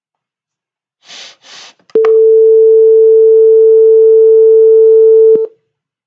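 Simulated buzzer of a microwave-oven program giving one loud, steady beep about three and a half seconds long that cuts off suddenly. It signals that the cooking timer has reached zero. Two short, soft hissing sounds come just before it.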